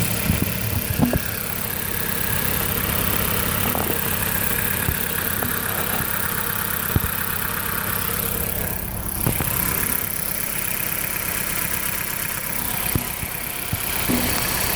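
2008 Dodge Caliber's four-cylinder engine idling, with a few sharp ticks at irregular moments. The engine misfires at idle and shakes, even with new spark plugs; the ignition coils are the next suspect.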